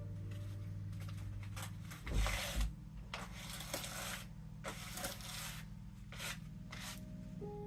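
Handling noises: a run of short rustles and scrapes, like packaging or fabric being moved, with two low thumps about two seconds in, over a faint steady low hum.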